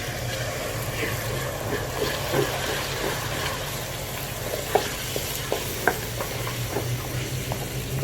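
Tomato paste sizzling in hot oil as it is stirred into the fried onion masala in a karahi, with a few sharp clicks of the spoon against the pan about halfway through.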